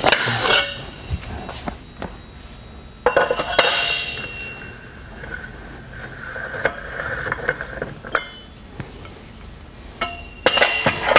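Steel breaker bar, cheater pipe and spider-nut socket tool clanking and clinking against the snowmobile drive clutch as the spider nut is broken loose and the tools are handled off. There are separate metallic knocks that ring on, with a cluster about three seconds in and another clatter near the end.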